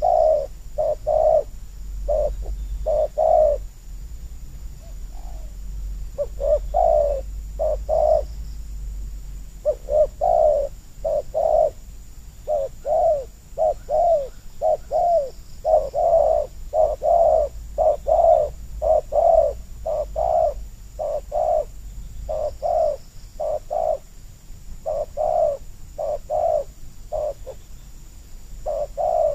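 Spotted doves cooing over and over: short, hoarse, arched coos in quick groups of two to four notes, one phrase after another.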